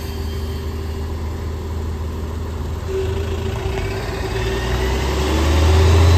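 Engine and drivetrain of a 2016 New Flyer XN40 natural-gas transit bus, heard from inside the cabin while it drives: a steady low drone that grows louder near the end, with a faint rising whine. The uploader calls the engine sound very strange.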